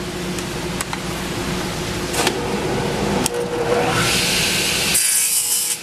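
A 10-inch radial arm saw running steadily; about four seconds in, the blade bites into a small walnut strip and a loud rushing noise of cutting builds up, cutting the waste away back to a preset stop.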